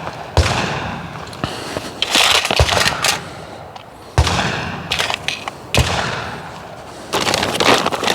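Gunshots on a shooting range: about five single shots one and a half to two seconds apart, each followed by an echo that dies away.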